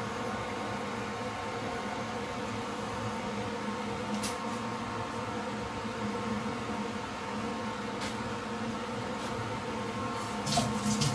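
Steady hum of a running induction cooktop, with a couple of faint clicks and some handling noise near the end.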